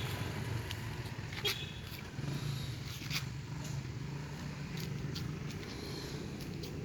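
Customized Honda Monkey Z50J's single-cylinder four-stroke engine, with a Daytona big-bore block and big carburettor, idling steadily, with a few light clicks.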